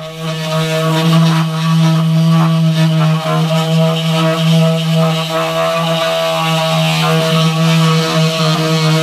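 Electric angle grinder fitted with a wire cup brush starts abruptly and runs at a steady pitch, scrubbing the sheet-steel cab floor.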